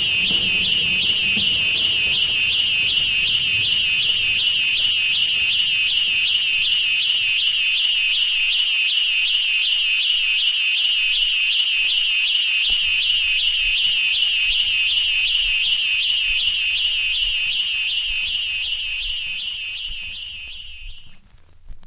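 A loud, high warbling alarm-like tone that wavers rapidly and evenly, over a faint low rumble. Faint regular low thumps come in about halfway through, and the tone fades away shortly before the end.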